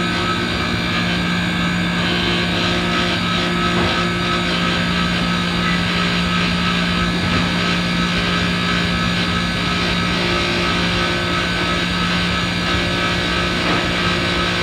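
Manitowoc ice machine running steadily: the compressor's constant low hum under the even rush of its fan.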